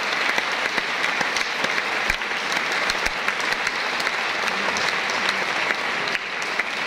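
Large audience applauding: a steady, dense clatter of many hands clapping at once.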